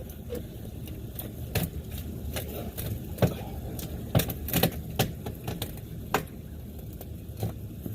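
Irregular sharp wooden knocks and clicks, about a dozen, as a rotted wooden porch post that has been cut free is worked back and forth to pull it out, over a steady low rumble.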